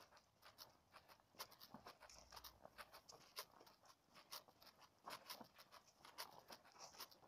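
Faint, irregular rustles and clicks of handling noise from walking with a body-mounted phone.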